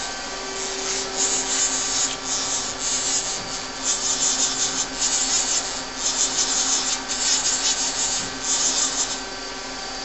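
Z-axis carriage of a Daewoo Puma 6G CNC lathe being jogged back and forth in short moves: about eight bursts of rubbing hiss from the servo-driven slide, stopping about 9 seconds in. A steady machine hum runs underneath.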